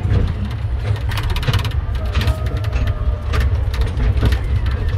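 Land train rolling along, its carriage rattling and clicking in quick irregular knocks over a steady low rumble.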